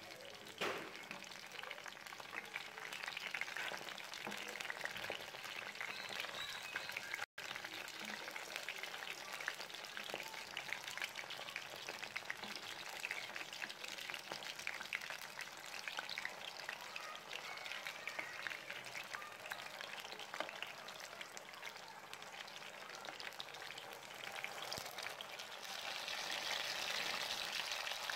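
Round patties shallow-frying in bubbling oil in a dark pan, a steady sizzle with fine crackling. It cuts out for an instant about seven seconds in and grows louder near the end.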